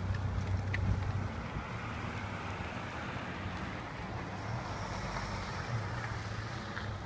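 Wind buffeting the phone's microphone over a steady low rumble.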